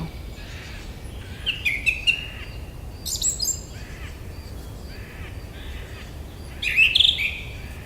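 Forest birds chirping and calling: short calls about one and a half seconds in, a burst of high chirps about three seconds in, and the loudest call near the end, over a faint steady low hum.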